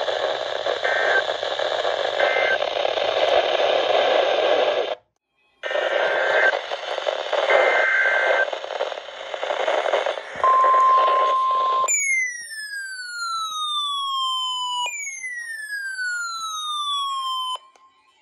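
Emergency alert radio audio: static-laden radio noise with a few short high beeps, a brief dropout, then a steady alert tone about a second and a half long. Two long siren-like falling tones follow, each sweeping down over about three seconds.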